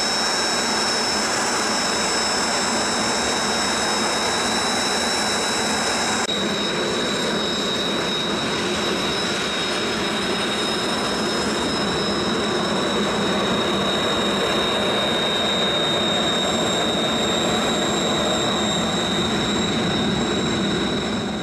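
Military jet engine running steadily: a broad rush of jet noise under a high, constant turbine whine. The upper hiss drops slightly about six seconds in.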